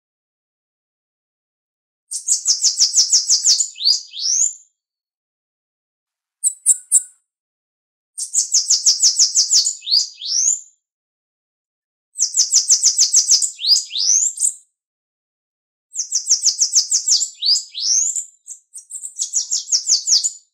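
Bananaquit singing: five song phrases a second or two apart, each a fast, high trill of rapid notes ending in a couple of rising notes, with one short burst between the first two phrases.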